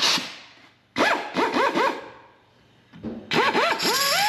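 A clatter, then a handheld rotary tool's small electric motor whining up and stopping in several short stutters about a second in. Near the end it stutters again, then runs on steadily and steps up in pitch as it is used to enlarge a hole in the car's headlight bucket.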